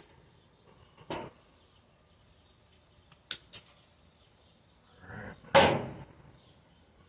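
Handling noises from work on a wiring harness: a soft knock, then two quick sharp clicks about three seconds in, then a louder short rasp about half a second long near the end.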